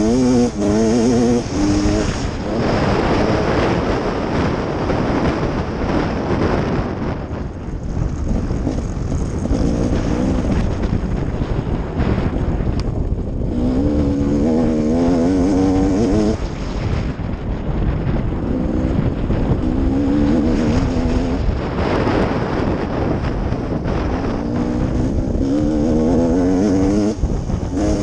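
Dirt bike engine revving hard through the gears, its pitch climbing and then dropping at each shift, again and again as the bike accelerates along the trail.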